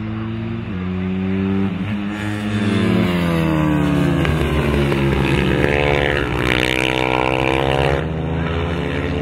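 Moriwaki MD250H racing motorcycles, 250 cc four-stroke singles, passing one after another through a corner. The engine pitch drops as they brake, then climbs again as they accelerate out, several bikes' engines overlapping and loudest in the middle.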